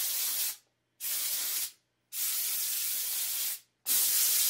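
Air blow gun on a coiled compressor hose letting out short blasts of compressed air: four hisses that start and stop sharply, the last two longer than the first two.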